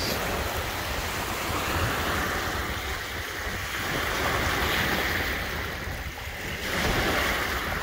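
Lake waves washing onto the shore, a steady surf that swells gently every two to three seconds.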